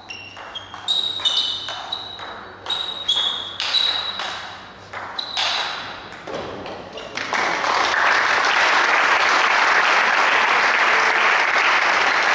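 Table tennis rally: the ball knocks off the bats and bounces on the table in quick alternation, about three sharp pinging knocks a second, for about seven seconds. The rally ends and steady applause follows.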